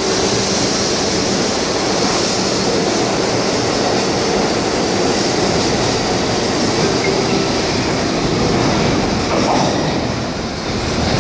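New York City subway train running through the station: a loud, steady rush of steel wheels on rail, with a high squeal from the wheels.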